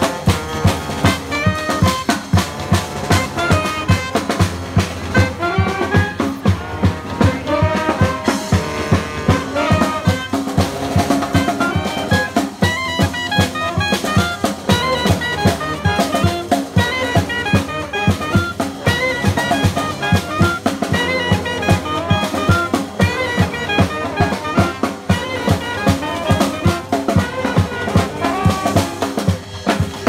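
Street brass band playing a tune: trumpets, saxophones, trombone and sousaphone over a steady snare and bass drum beat.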